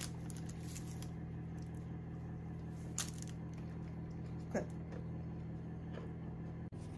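Steady low hum in the room, with a few sharp crackles as gloved hands handle pieces of flaky, crisp unleavened bread on parchment paper.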